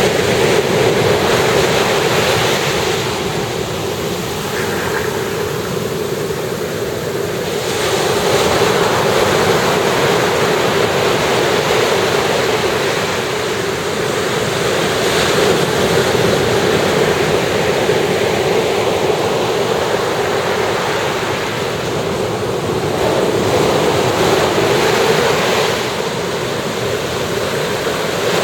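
Sea waves breaking and washing up on a sandy beach, the surf swelling and easing every several seconds.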